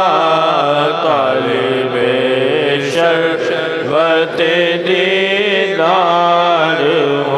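Devotional Urdu manqabat chant: a male voice singing long, wavering notes over a steady low drone.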